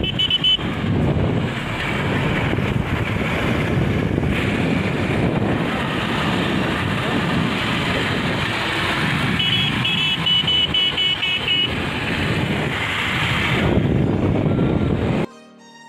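Road noise of a moving vehicle, with wind rushing over the microphone. About ten seconds in, a quick run of short, high horn toots. Cuts off suddenly near the end.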